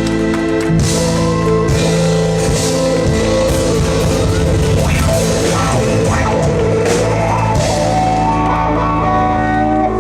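Live rock band playing: electric guitar and drum kit over held chords, with a lead guitar line in the middle, ending on a long held chord.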